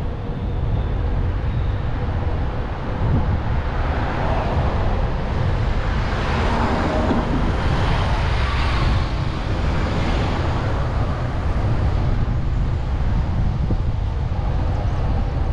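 Road traffic noise with wind rumbling on the microphone; the traffic swells and fades around the middle as a vehicle goes by.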